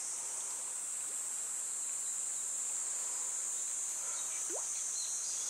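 Steady, high-pitched chorus of insects, unchanging throughout, with one short rising note about four and a half seconds in.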